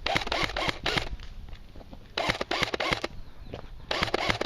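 Airsoft gun firing in three rapid bursts of sharp clicks: one at the start, one around the middle and one starting near the end.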